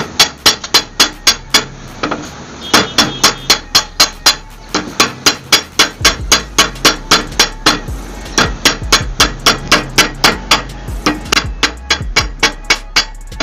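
A coin being hammered into a ring on a steel rod: sharp metallic strikes, about three or four a second, in runs with brief pauses between.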